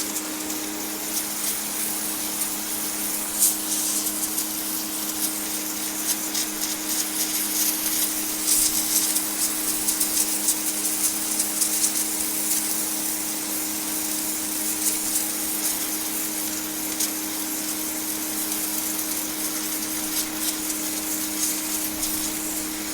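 Electric pressure washer running steadily: the motor-driven pump hums under the loud hiss of the high-pressure jet striking concrete, with scattered crackling spatter.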